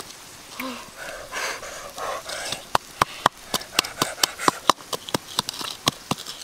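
A stone pestle pounding and grinding in a small bowl. First comes a rough scraping rub, then sharp, irregular knocks at about two to three a second.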